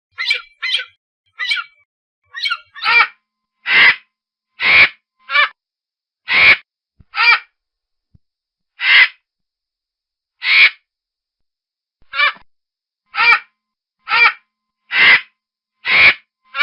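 Vulture giving a long series of short, hoarse calls, roughly one a second with uneven gaps. The first few are shorter and softer, and the calls grow louder from about three seconds in.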